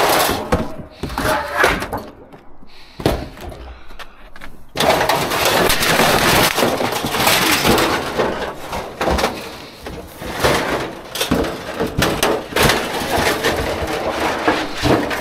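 Rubbish and scrap being rummaged and moved about in a dumpster: scattered knocks at first, then from about five seconds in a loud, continuous clatter and scraping with many knocks.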